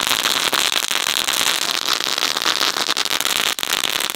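Category 1 ground firework burning on concrete, giving off a continuous hiss packed with rapid crackling.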